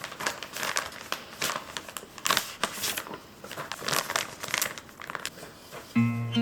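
Irregular crinkling and rustling, like something crumpled or handled by hand. Guitar music comes in near the end.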